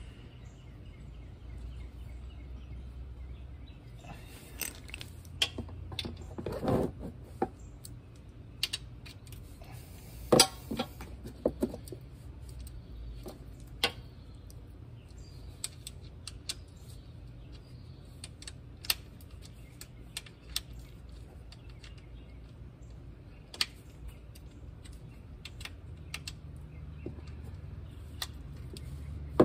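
Ratchet wrench clicking in short runs, with scattered metal clinks, as the transmission drain plug is threaded back in and tightened, over a low steady background hum. The sharpest clinks come about seven and ten seconds in.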